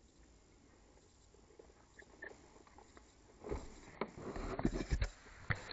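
Faint hiss, then from about three and a half seconds in a run of irregular knocks, bumps and rustling: handling noise on the action camera's microphone.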